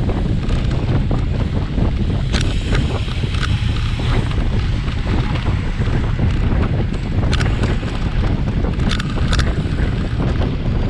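Wind buffeting the microphone: a steady, loud low rumble, broken by a few brief sharp sounds.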